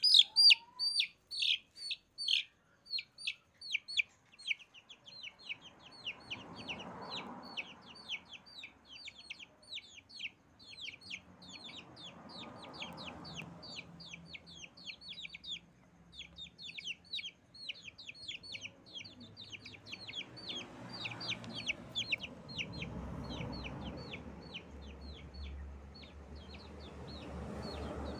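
Chicks peeping without pause: a fast string of short, high-pitched peeps, several a second, loudest at the start. A faint low rumble comes and goes underneath.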